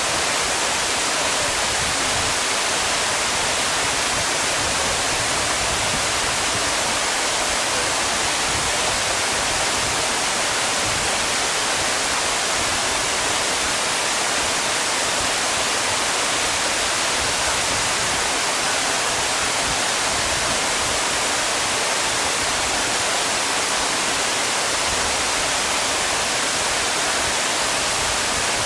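Steady, even rush of flowing water in the stream at Miroku Falls, with no change in level throughout.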